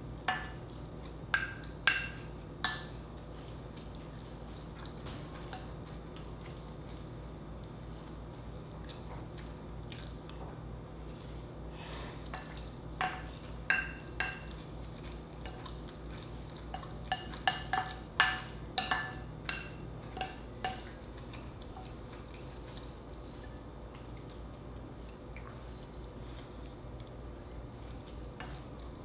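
Wooden spoon knocking and scraping against a glass bowl, each knock ringing briefly. A few come in the first three seconds, then clusters about halfway and two-thirds through, with quieter stretches between.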